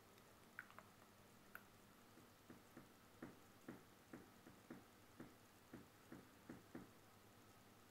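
Faint ticking, about two soft ticks a second for several seconds, over near-silent room tone with a low hum.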